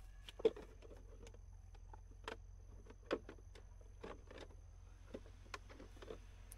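Footsteps through grass and dry leaves, a step roughly every second with small rustles and crackles, the loudest about half a second in.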